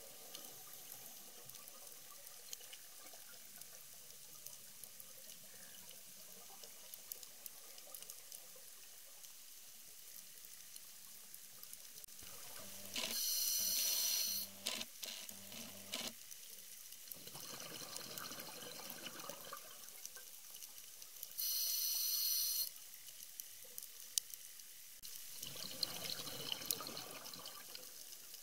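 Underwater reef ambience: a faint steady hiss with scattered small clicks. About halfway through, a scuba diver's breathing on a regulator comes in. A loud rush of exhaled bubbles happens twice, with a softer, longer hiss of inhaling through the regulator after each.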